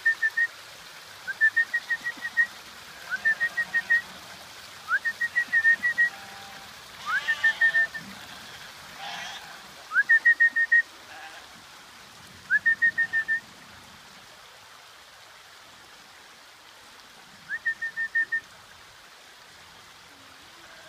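A bird calling a repeated whistled phrase, a quick rising note followed by a fast run of four to six notes at one pitch. It calls eight times, at first about every two seconds, then with longer gaps.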